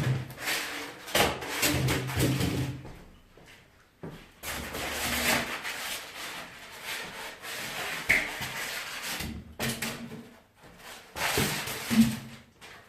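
Packaging being handled during unboxing: irregular rubbing, scraping and knocking in several bouts with short pauses, with a sharp knock near the end.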